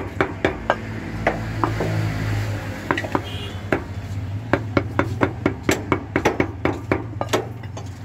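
Butcher's cleaver chopping mutton into small pieces on a wooden log block: a run of sharp knocks, sparser in the first couple of seconds, then quick strokes at about three a second. A steady low hum sits underneath.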